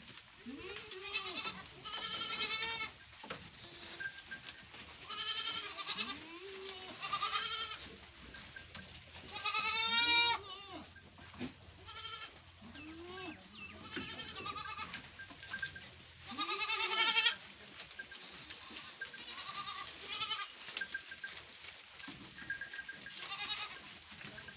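Goats bleating again and again, several animals calling in turn with quavering, wavering bleats, some high and some lower; the loudest calls come about ten and seventeen seconds in.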